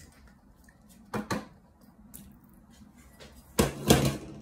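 A spatula taps twice on a small glass dish, then kitchenware clunks louder a few times near the end as it is handled and set down.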